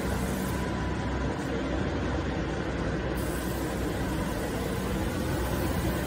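Steady hum and noise of running factory machinery, with a constant low drone and no distinct knocks or strokes.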